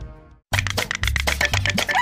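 Background music fades out to a brief silence, then a new upbeat track with a quick steady beat starts abruptly about half a second in.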